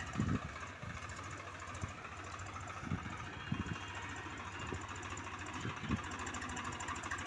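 Swaraj 735 tractor's three-cylinder diesel engine running at low speed as it hauls a loaded trailer along a rough dirt track, with a few dull thumps.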